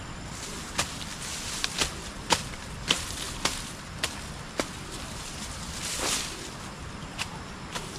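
Napier grass being cut by hand: a string of sharp cuts through the stalks, roughly one every half second, with a longer rustle of the leaves about six seconds in.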